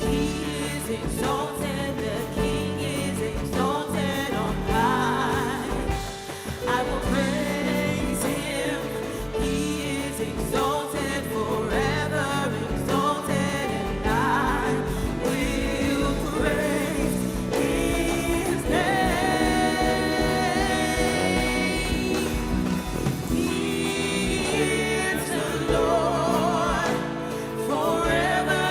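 Live gospel worship music: singers, with a choir or congregation joining in, over a band with sustained keyboard or guitar chords. The vocal lines swell and waver with vibrato, and the sound stays full throughout.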